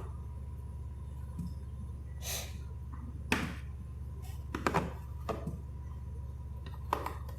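A few scattered knocks and clicks, with a short hiss about two seconds in, over a steady low hum.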